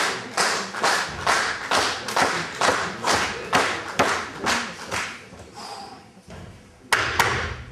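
Audience clapping in unison, about two claps a second, to spur on a weightlifter stepping up to the bar; the clapping fades out about five seconds in. Two sharp slaps follow near the end.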